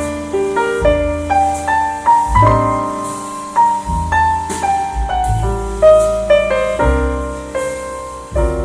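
Piano music, a melody of single notes over held low bass notes, played back through Klipsch R-51M two-way horn-tweeter bookshelf speakers and picked up by a microphone in the room.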